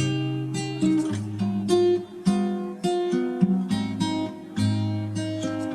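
Acoustic guitar music, plucked and strummed chords with a new attack about every half second.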